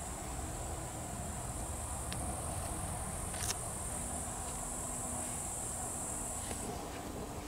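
Insects, such as crickets, chirring outdoors in a steady high-pitched trill that fades out near the end.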